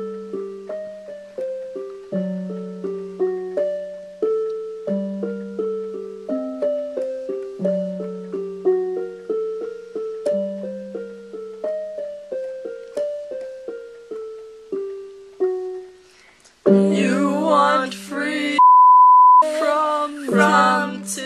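Piano playing a repeating broken-chord pattern, a low bass note struck about every two and a half seconds. Near the end women start singing over it, and one word is covered by a steady censor beep of just under a second.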